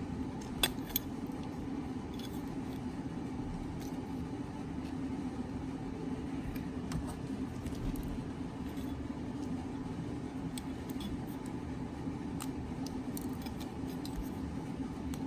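Small plastic clicks and snaps as support material is picked and broken away from a 3D-printed plastic part, with a few clearer clicks under a second in. A steady background hum runs underneath.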